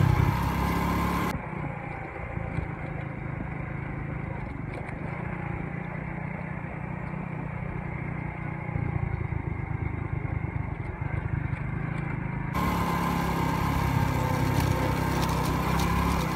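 Motorcycle engine running steadily while riding, a low continuous drone. The sound turns dull and muffled from about a second in until near the end, then opens up again.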